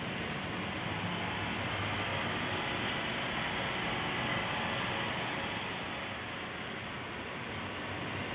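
Model railway train running on the layout: a steady mix of electric motor hum and rolling noise, easing slightly about six seconds in.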